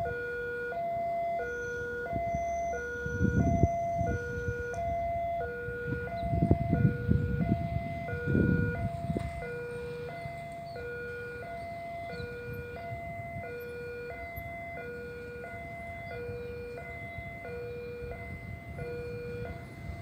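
Railway level-crossing warning alarm sounding a steady electronic two-tone chime, switching back and forth between a higher and a lower tone about every half second or more: the crossing signal that a train is approaching. A few louder low rumbles come in between about three and nine seconds.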